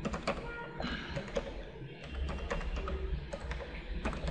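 Computer keyboard typing: a run of separate key clicks, over a low steady hum.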